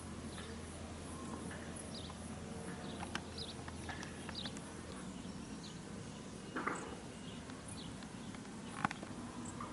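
Faint outdoor ambience with scattered short bird chirps and a few soft knocks.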